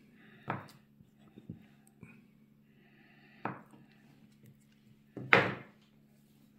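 Kitchen knife knocking on a wooden cutting board while slicing boiled potatoes: three sharp knocks, the last about five seconds in being the loudest, with a few light ticks between them over a faint steady low hum.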